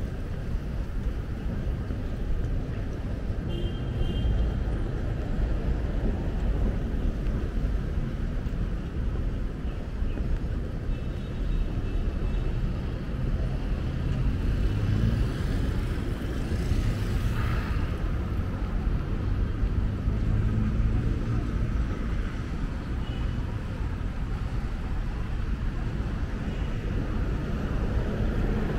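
Outdoor city ambience: a steady low rumble of road traffic, with a brief hiss that swells and fades about two-thirds of the way through.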